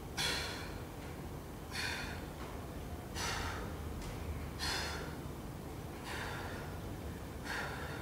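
A man breathing out hard in short, forceful breaths, one with each push-up, six times at a steady pace of about one every second and a half.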